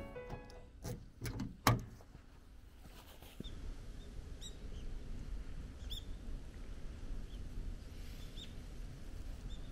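A car door shuts with a solid clunk about a second and a half in, after a couple of lighter clicks. Then steady wind noise, with a few short bird chirps.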